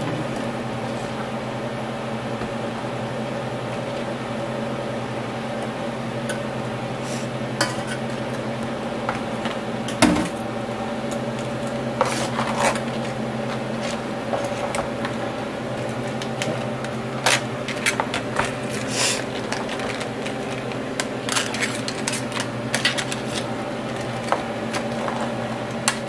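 A metal spoon clicking and scraping against crab shells and a plastic bowl as crab legs and corn are tossed in butter sauce; the clicks are sparse at first and come often in the second half. A steady low hum runs underneath.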